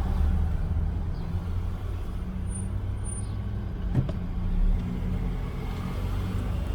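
Low, steady rumble of a 2020 Volvo XC90 on the move, with two brief, very high-pitched chirps about two and a half and three seconds in, and a single sharp click about four seconds in.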